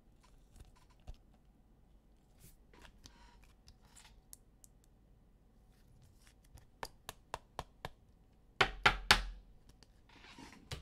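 Trading cards and their plastic sleeves and packaging being handled on a table: faint scattered clicks, a quick run of sharp ticks about two-thirds of the way through, then a few loud bumps and a crinkle near the end.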